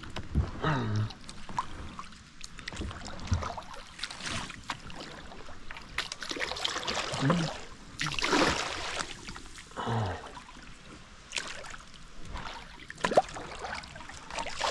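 Kayak paddles working in shallow creek water: irregular swishing strokes and splashes as a stuck kayak is pushed back out, the biggest surge a little past the middle.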